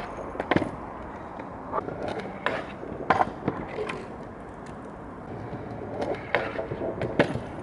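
Stunt scooter wheels rolling on pavement, broken by several sharp clacks and knocks as the scooter hits the ground and a waxed ledge during trick attempts.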